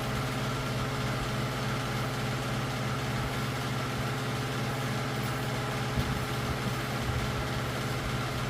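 Electric fan running with a steady hum. There is one light knock about six seconds in.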